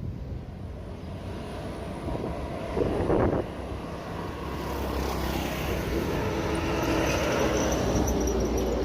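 Strong wind buffeting the microphone. A thin high whine comes in about halfway through, and the noise grows louder.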